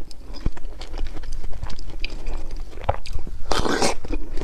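Close-miked eating of pepino melon: juicy, lightly crunchy bites and chewing with many small wet clicks, and one louder burst about three and a half seconds in.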